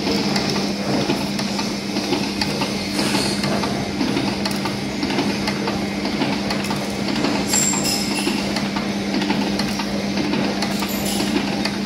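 Filigree profile forming machine running: a steady mechanical rattle from its cam-driven forming tools over a constant hum, with a few faint sharp clicks.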